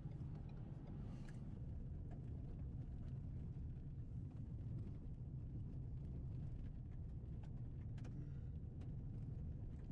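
Steady low rumble of road and wind noise inside a moving car, with a few faint clicks near the end.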